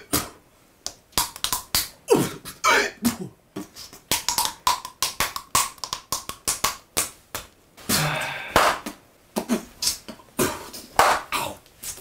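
A woman's amateur beatboxing: quick mouth pops, clicks and vocal noises in an uneven rhythm, with a held note in the middle and a longer hissing burst about eight seconds in.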